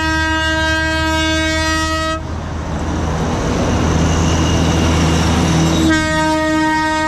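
Darjeeling toy train sounding a long, steady horn blast, then a stretch of noisy train rumble, then a second horn blast starting about six seconds in.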